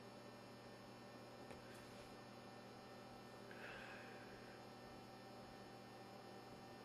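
Near silence: room tone with a faint steady hum, a faint click about a second and a half in and a brief faint sound just before the middle.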